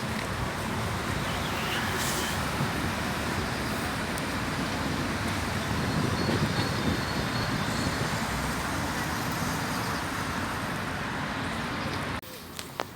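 A steady, rumbling roar of outdoor noise, heaviest in the low end, that drops away suddenly near the end.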